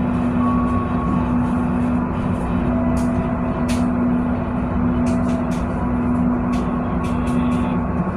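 Diesel locomotive engine running steadily with a loud, constant hum and low rumble, with a few short metallic clicks or clanks from about three seconds in.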